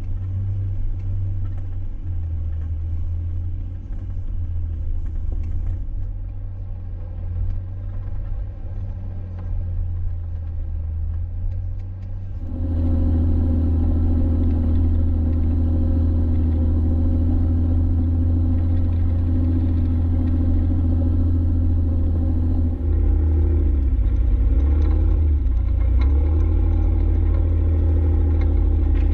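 Jeep driving, with a steady low engine and road rumble. About twelve seconds in it gets louder and a steady engine hum comes through; near the end the pitch rises and falls as the revs change.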